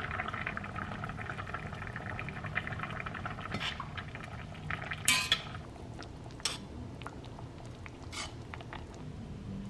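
Beef bone soup bubbling on the stove with a fine crackle that fades after about three seconds, then a metal utensil clinking against the pot four times, the loudest about five seconds in. A steady low hum runs underneath.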